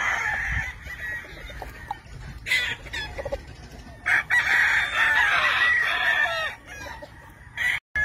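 Roosters crowing, several crows in turn, the longest starting about four seconds in and lasting about two seconds.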